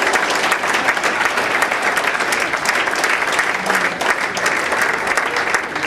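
Audience applauding, with many people clapping together at a steady level.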